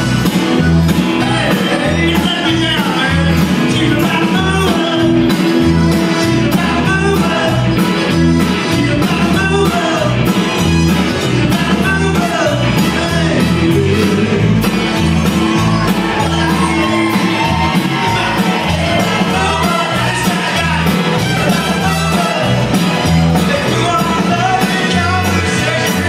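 Live Tex-Mex rock band playing at full volume: a steady driving beat from drums and bass, with electric guitar, keyboard, button accordion and trumpet, and a lead voice singing over it.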